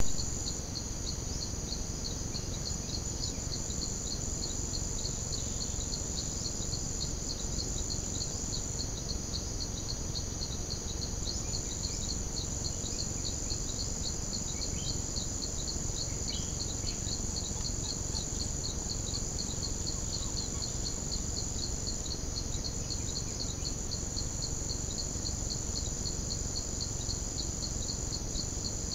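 Steady insect chorus: a continuous high-pitched trill with a second insect pulsing in an even rhythm just below it, over a low background hiss.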